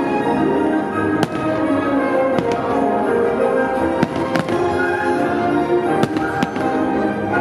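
Aerial firework shells bursting overhead, a series of sharp bangs about one a second, over music playing.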